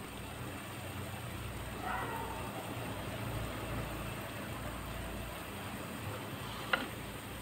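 A steady low rumble with one sharp tap near the end, while tomato sauce is poured from a bottle into a cooking pot of fried vegetables.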